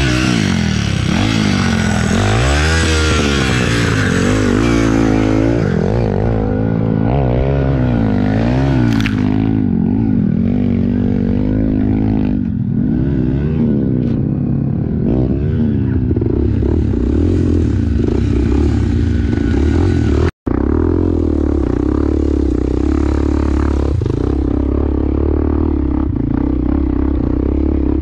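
Dirt bike engines revving up and down over and over while the bikes are worked out of a deep rut, with a brief dropout about twenty seconds in. After that, a bike engine runs at a steadier pitch.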